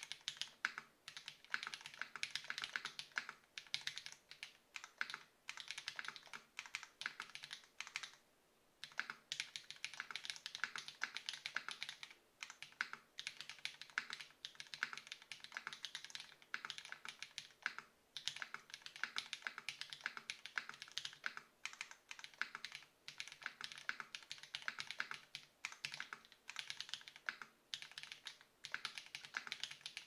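Iron165 R2 mechanical keyboard being typed on fast and continuously. It has paper-modded Feker Holy Panda tactile switches lubed with 205g0, GMK keycaps, an aluminium plate and no case foam. The keystrokes stop briefly about eight seconds in.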